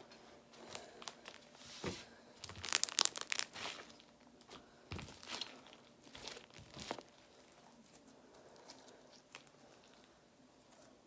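Green slime with foam balls in it being squished and pulled by hand, giving irregular crackles and clicks. The crackling is loudest and densest about three seconds in.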